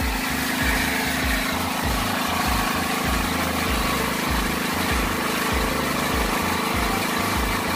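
ZEHN ZG2500E portable petrol generator, driven by a GX220-type single-cylinder engine, running steadily with its alternator putting out 220 V through a newly fitted AVR.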